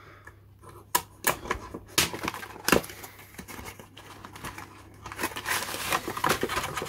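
Cardboard model-kit box being opened: a series of sharp clicks and tearing as the factory seal and end flap are pulled open, then the plastic bag of sprues crinkling louder from about five seconds in as it is drawn out of the box.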